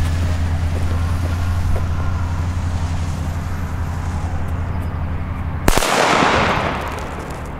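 Funke C-Böller firecracker exploding once, a single sharp bang about six seconds in that echoes briefly, over a steady low hum.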